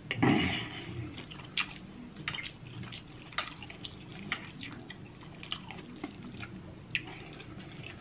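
Close-up mouth sounds of eating creamy shrimp Alfredo pasta: chewing with scattered wet smacks and clicks, and a louder burst just after the start.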